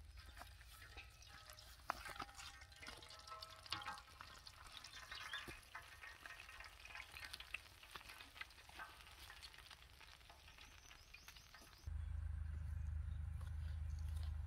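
Whole baby stingrays frying in hot oil, crackling and sizzling with many small pops. About twelve seconds in, the sizzle gives way suddenly to a louder, steady low rumble.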